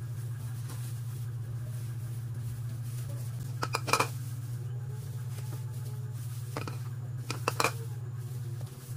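Sharp taps and knocks of a block of cheese and a kitchen knife on a cutting board as the cheese is set down and sliced: a cluster of taps about four seconds in and a few more near the end, over a steady low hum.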